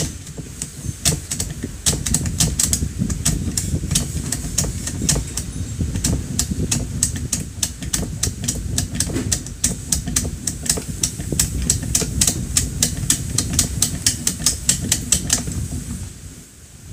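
Rapid clicking as .22 LR cartridges are pushed one after another out of an AR-type .22 conversion magazine with a plastic unloader tool, about three clicks a second, with a low rustle of hands and plastic underneath. The clicking starts about a second in and stops about a second and a half before the end.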